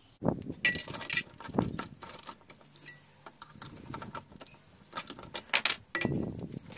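Metal drill bits clinking and rattling as one is picked out of a rack of bits, then clicks and light knocks as the bit is fitted into a drill press chuck and the chuck is tightened.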